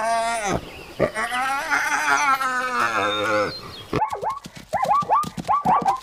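African wild dogs giving long, wavering whining calls, then, about four seconds in, zebras barking in a quick series of short, high yelping calls among sharp clicks.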